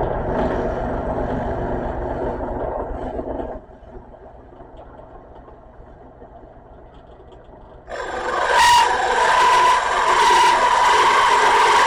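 Drill press running with a 3-inch hole saw. It goes steadily at first, drops much quieter for a few seconds, then about eight seconds in becomes louder and harsher, with a steady whine, as the saw cuts into the hardwood board.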